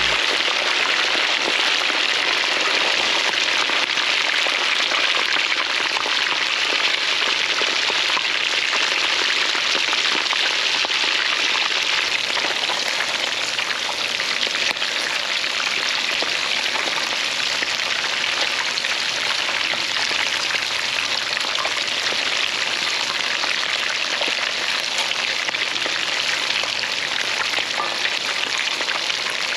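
Two whole red snappers deep-frying in hot coconut oil: steady sizzling and crackling.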